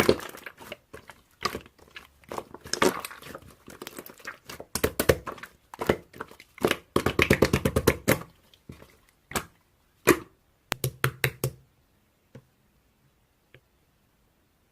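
Handling noises: a busy run of knocks, clicks and crinkling, with a quick rattling run about seven seconds in, stopping about twelve seconds in.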